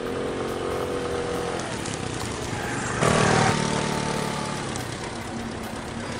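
SYM Jet 4 scooter's four-stroke engine running under throttle as the scooter rides, its pitch rising slightly in the first second or so. About three seconds in, a louder engine note starts abruptly and then eases off as the scooter pulls away.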